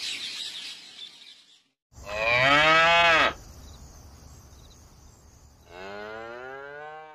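Cow mooing twice: a loud, long moo about two seconds in that rises and then falls in pitch, and a second, quieter moo near the end.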